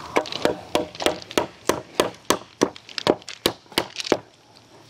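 Hammer striking a wooden board in steady blows, about three a second, knocking nails out of the lumber; the blows stop about four seconds in.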